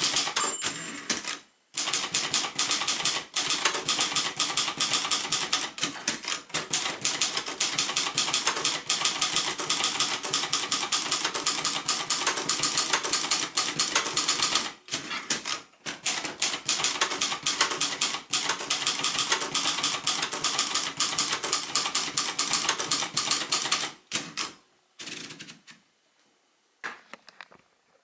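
1972 Royal Mercury ultraportable typewriter being typed on quickly, its type bars striking in fast runs of keystrokes with a few brief pauses; its escapement, freed from a jam, advances freely. The typing stops about 24 seconds in, leaving a few scattered faint clicks.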